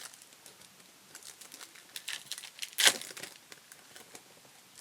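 Foil booster-pack wrapper crinkling in the hands as it is handled, with one short, louder tear just before three seconds in as the pack is ripped open.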